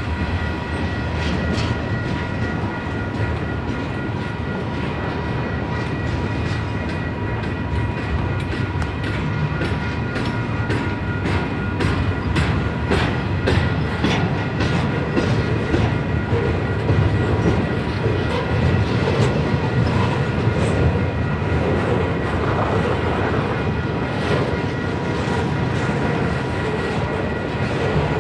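Double-stack intermodal freight train rolling past: a steady rumble of steel wheels on rail, with rapid clicking as wheels cross rail joints and a thin, steady high whine over it.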